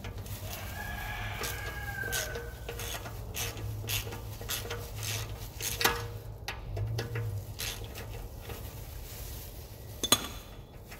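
Hand ratchet clicking in uneven strokes as it backs out a hub bolt. Sharp metal clinks come about six seconds in and again near the end.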